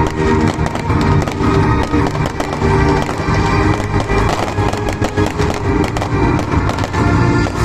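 Fireworks bursting and crackling in a rapid, dense run of bangs, over music with steady held notes.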